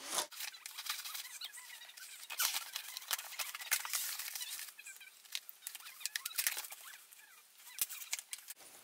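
Large scissors slicing along packing tape on a cardboard box: irregular crackles, scratches and a few small squeaks from the tape and cardboard.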